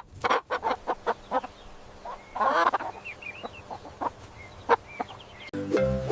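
Chicken clucking: a quick run of short clucks, then a longer squawk about two and a half seconds in, then a few scattered clucks.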